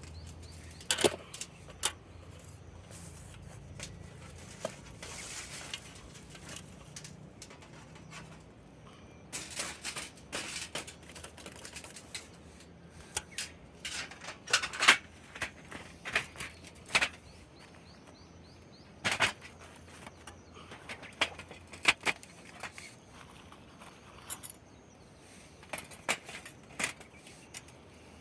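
Wood in a campfire crackling and popping, with irregular sharp cracks coming in clusters, some of them loud.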